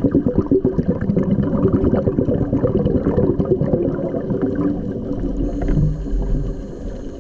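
A scuba diver's exhaled regulator bubbles gurgling and crackling underwater, loud and continuous, easing off briefly a couple of times between breaths.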